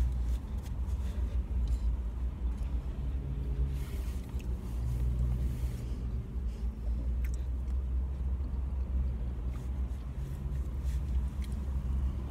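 A car's engine idling, a steady low rumble heard inside the cabin, with light rustling of food packaging now and then.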